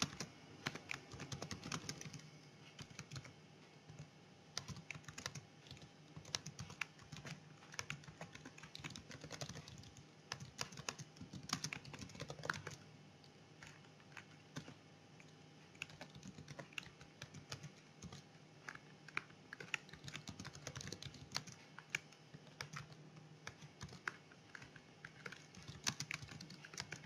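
Computer keyboard typing: irregular bursts of quick keystrokes with a few short pauses between them.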